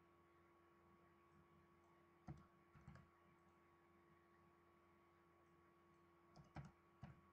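Near silence with a faint steady hum, broken by a few faint computer input clicks in two clusters, about two seconds in and again near the end.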